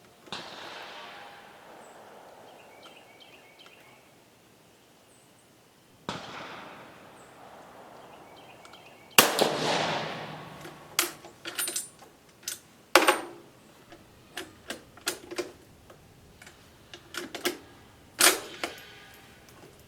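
Italian Vetterli 1870/87/15 bolt-action rifle firing a light cast-bullet load. A loud shot comes about nine seconds in, followed by a run of sharp metallic clicks from working the bolt and handling cartridges, then another loud report near the end. Two fainter reports come earlier, near the start and about six seconds in.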